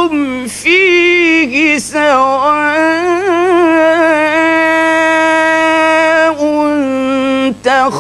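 Male Quran reciter's solo voice in slow melodic recitation, drawing out a syllable into long ornamented notes. After short breaths in the first two seconds, he holds one long wavering note for about four seconds, then breaks off briefly near the end.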